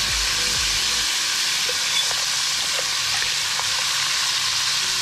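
Chunks of barracuda frying in hot oil in a pan: a steady sizzle with a few small pops, as a metal spoon stirs the fish.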